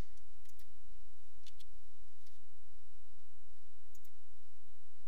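Computer mouse button clicks, a few pressed-and-released pairs spread through, over a steady low electrical hum from the recording setup.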